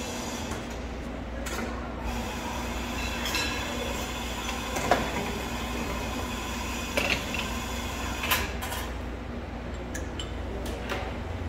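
Steady low machine hum from an espresso bar, with a few sharp metallic clinks of the espresso machine's portafilter, pitcher and cups as the barista works at the group head. The loudest clink comes about five seconds in, with more around seven and eight seconds.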